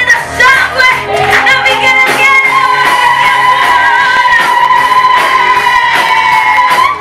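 Church praise-and-worship music: singing over band accompaniment, with one long note held from about a second in until near the end.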